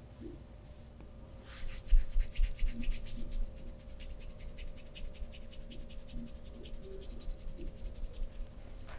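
Hands rubbing briskly in a massage, a fast, dense run of scratchy strokes starting about a second and a half in, with a few low thumps early in the rubbing.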